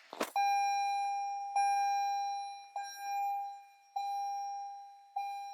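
2019 Toyota RAV4's dash warning chime sounding once the ignition is switched on: a click, then five single bell-like dings about a second and a quarter apart, each fading before the next.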